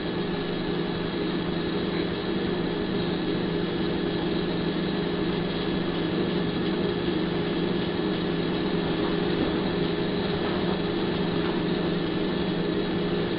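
Steady low hum with a faint hiss, unchanging throughout, from a running motor or appliance.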